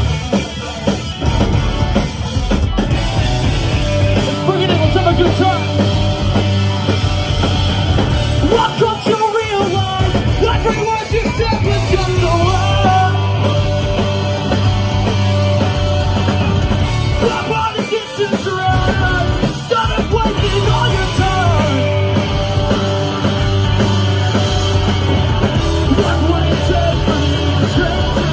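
Live punk rock band playing loud: distorted electric guitars, bass and drums, with a singer singing and shouting over them.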